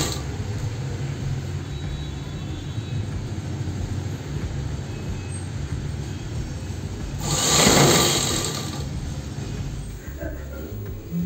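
Sewing machine stitching through heavy padded jacket fabric: a steady low hum, with one louder spell of fast running about seven to nine seconds in.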